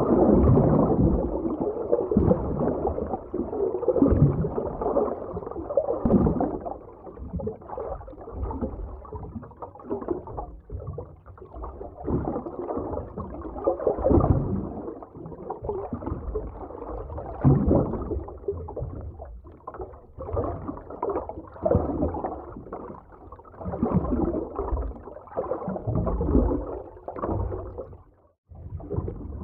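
Underwater ambience: muffled, dull water movement and gurgling that swells and ebbs in uneven surges every second or two. There is a brief dropout near the end.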